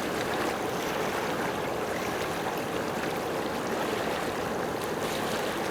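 Steady rushing noise of running water, even in level throughout.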